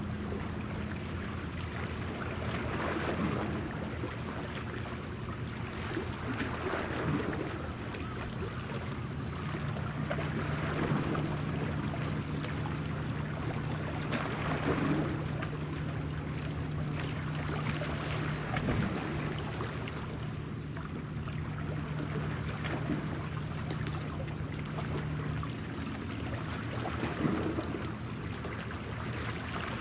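Distant ship engines giving a steady low hum, over wind and waves on open water. The hum's pitch steps up about ten seconds in and back down near the end.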